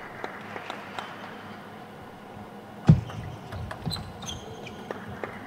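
Table tennis ball clicking sharply off the paddles and table in a doubles rally, the hits coming thick and fast from about three seconds in. A heavy low thump just before the rally starts is the loudest sound.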